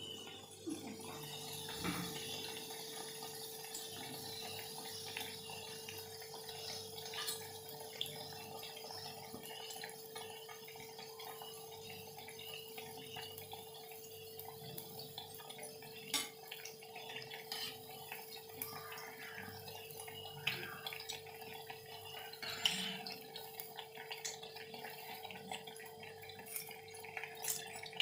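Battered eggplant slices (baingani) sizzling as they deep-fry in hot oil in a kadhai, with scattered clinks of a metal slotted spoon against the pan as the pieces are turned. A steady hum runs underneath.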